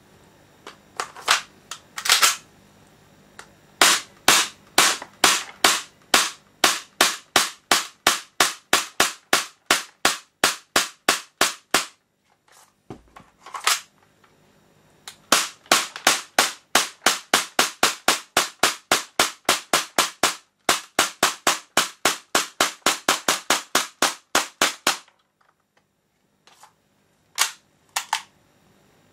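Tokyo Marui Sentinel Nine gas blowback airsoft pistol firing semi-automatic in long strings of sharp cracks, about three shots a second, each shot the gas blast and the slide cycling. The firing stops for a couple of seconds around the middle with a few lighter clicks, resumes for another long string, and ends with two last shots near the end.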